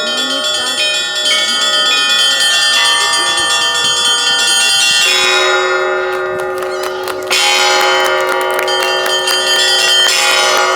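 Russian Orthodox church bells rung by one bell-ringer in a dense, continuous peal: quick strokes on the small high bells over the long ringing of the larger bells. There is a slight lull, then a fresh flurry of strokes about seven seconds in.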